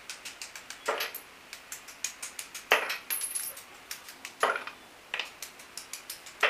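A plastic hammer tapping lightly and quickly, several taps a second, on an e-rickshaw motor's rotor to knock loose its magnet segments. There are a few louder clacks as the loosened magnet pieces drop onto a wooden bench.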